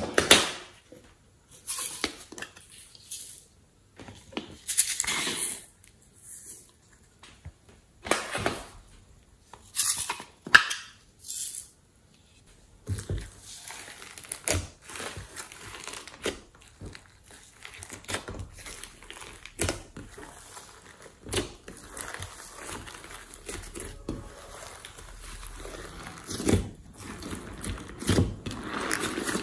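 For the first twelve seconds, a handful of brief clacks and rattles from plastic topping containers being handled over a glass tray. After that, the slime is folded and kneaded over foam beads and glitter, a continuous crackly squishing with many small clicks.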